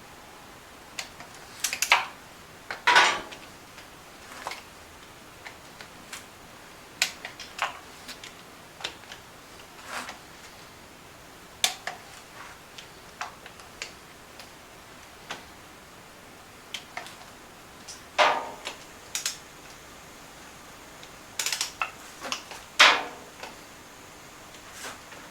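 Irregular metallic clinks and knocks of hand tools and hardware being handled, a few louder clanks with a short ring.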